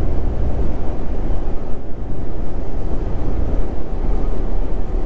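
Steady low rumble of a Renault semi-truck heard from inside its cab while it drives along the road: engine and road noise.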